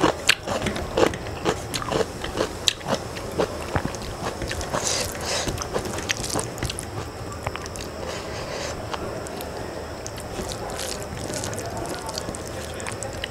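Eating by hand: fingers squishing and mixing rice with curry on a steel plate, along with chewing. A quick run of sharp clicks fills the first few seconds, then the sound turns softer and steadier.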